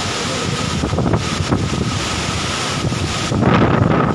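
Heavy rain and gusting wind, with the wind buffeting the microphone; it gets louder and gustier about three seconds in.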